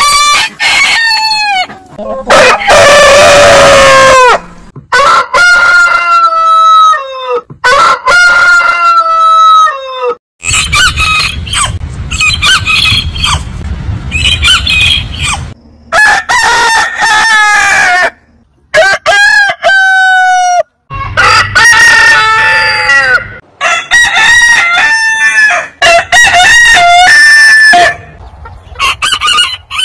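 Several different roosters crowing one after another, a dozen or so loud crows, many ending in a long, drawn-out falling note, with abrupt cuts between clips. For a few seconds near the middle a low rumble runs under fainter, higher crows.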